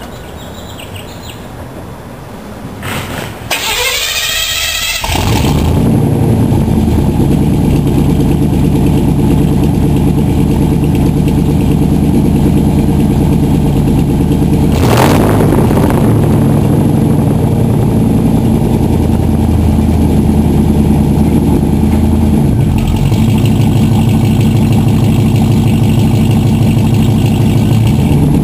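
Truck engine cranked over by the starter for about two seconds, catching about five seconds in and then idling steadily through a 3-inch exhaust with a homemade 4-inch ram-jet style tip.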